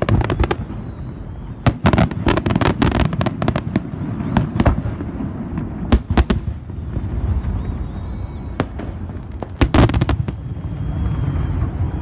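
Fireworks going off: clusters of sharp bangs and crackling reports over a steady low rumble, loudest about two seconds in and again near ten seconds.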